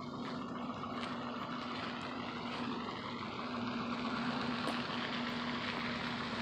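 Steady mechanical hum with a constant low drone under a wash of noise, growing slightly louder in the second half.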